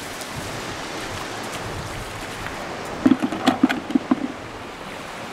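Steady hiss of wind and surf on an open beach. About three seconds in comes a quick run of about six hard clicks and knocks.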